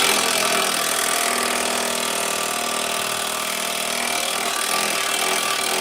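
A power tool running steadily at full speed, a hard even mechanical rattle with a faint steady hum in it.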